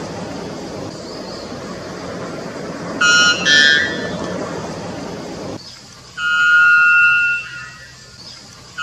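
White bellbird calling: two short, loud, ringing notes about three seconds in, then a long, loud, ringing note held for about a second about six seconds in. A steady background rush of noise underneath cuts off suddenly just before the long note.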